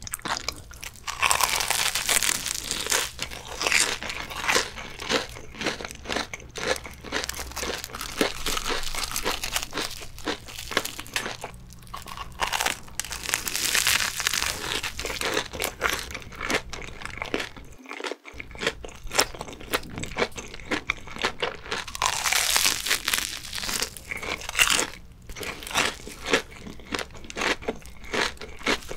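Close-miked crunching and chewing of a crumb-coated mozzarella corn dog, the crisp crust crackling with each bite. It comes in three louder stretches of crunching, with chewing in between.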